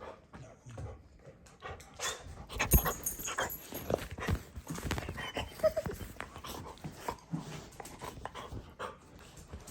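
A miniature golden retriever dog making small noises amid a run of clicks and scuffles, busiest from about two to seven seconds in.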